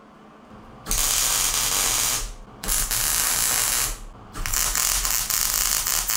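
Wire-feed welder arc crackling and sizzling as steel angle is welded to square steel tubing. It comes in three runs of a second or two each, with short breaks between, starting about a second in.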